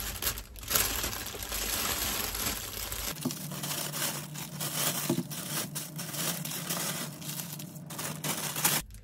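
Thin plastic shopping bag and cellophane bagel wrappers rustling and crinkling as the bag is opened and wrapped bagels are taken out onto a counter.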